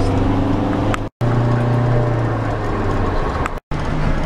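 Car engine and road noise heard from inside a moving car at steady cruising speed: a steady low drone. It cuts out to silence for a split second twice, about a second in and again near the end, where the footage is spliced.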